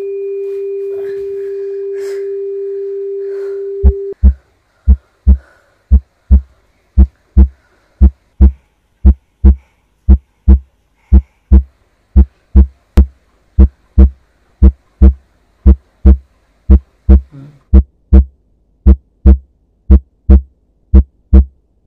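A steady electronic tone that cuts off about four seconds in, followed by a heartbeat sound effect: paired low lub-dub thumps, about one beat a second.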